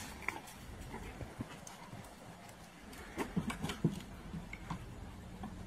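A dog's paws tapping and scrabbling as it moves about, with a quick cluster of taps about three seconds in.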